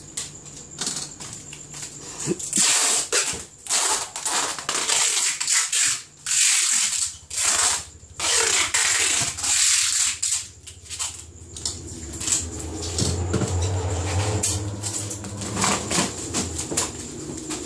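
Small boxes and styrofoam cooler boxes being handled and stacked: repeated scraping and rustling. A low hum comes in after about twelve seconds.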